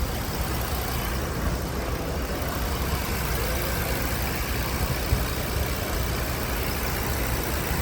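Car engine idling steadily, with a single short click about five seconds in.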